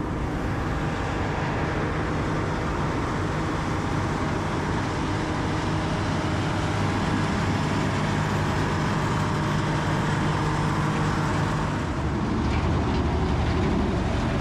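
Heavy diesel equipment running steadily, a deep engine note under continuous mechanical noise. The note shifts and gets slightly louder about twelve seconds in.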